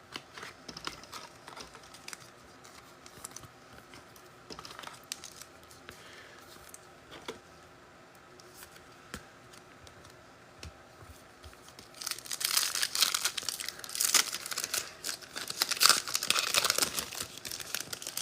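Soft clicks and light rustling of trading cards being handled, then, about twelve seconds in, the foil wrapper of a trading-card pack being torn open and crinkled for several seconds.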